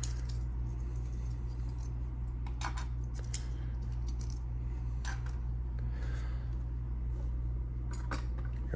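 Clear plastic card display stands being handled and fitted together: scattered light plastic clicks and clatters, some in quick clusters, over a steady low hum.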